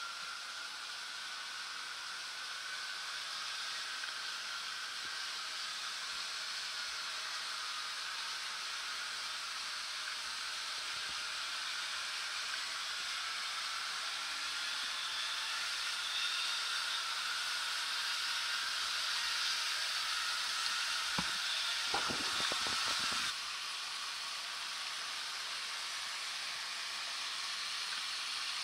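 Model electric railcar running along the layout track, a steady high whirring hiss of its motor and wheels that slowly grows louder. About three-quarters of the way through there is a short run of sharp clicks, and then the sound drops abruptly to a quieter steady run.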